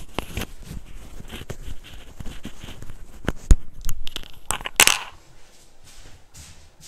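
Handling noise: clicks and knocks of a small glass jar being picked up and moved, with rustling, and a short, louder hiss just before five seconds in. After that it goes quieter.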